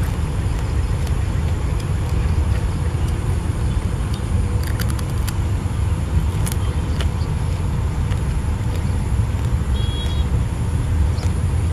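Steady low rumble of wind buffeting the microphone, with a few faint sharp clicks about five seconds in.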